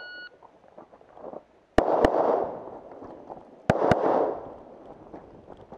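A short electronic shot-timer beep, the start signal, then a semi-automatic pistol fires two quick pairs of shots, each pair a quarter second apart and the pairs about two seconds apart, each shot echoing briefly.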